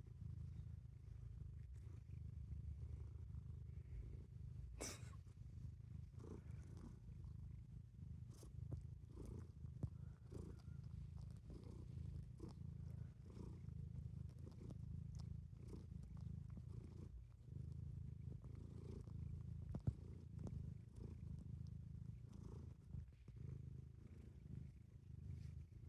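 Cat purring steadily, a low, faint, pulsing rumble, with a few soft clicks over it.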